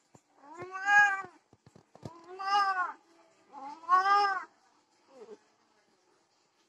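Domestic cats mating: three long, loud yowls, each arching up and then down in pitch, followed by a shorter, lower call that falls away. This is the caterwauling of a mating pair as the tom mounts and grips the queen.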